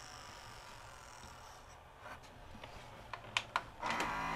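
Sharp VC-H972 VCR's tape-loading mechanism: a few small mechanical clicks, then the loading motor and its worm gear start up near the end with a steady whine. The loading motor is noisy, in a mechanism that will not finish its load cycle.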